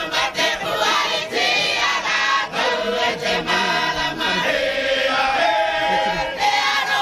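A group of women and men singing together as a choir, many voices on held, gliding notes.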